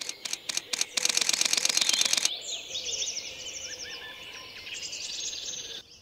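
Camera shutter firing: a few single clicks, then a rapid continuous burst lasting just over a second. Then a small bird sings quick chirping, whistled phrases for about three seconds.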